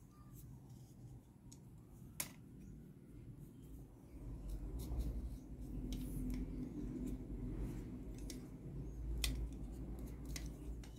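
Faint handling of a plastic sliding caliper against a smartwatch case: scattered light clicks and scrapes as the jaws are slid and fitted around the watch, with a low rumble that grows louder from about four seconds in.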